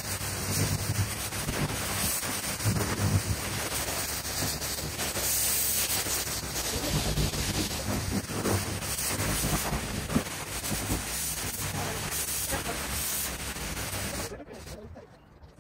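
High-pressure water jet from a pressure washer lance blasting grime off paving slabs: a steady, loud spraying hiss that cuts off about 14 seconds in.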